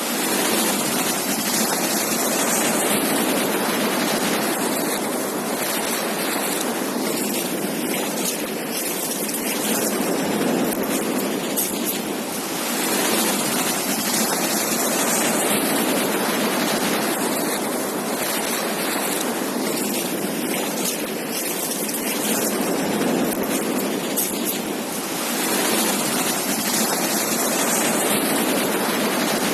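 Ocean surf on a beach: a steady wash of breaking waves that swells and eases, rising again about every twelve seconds.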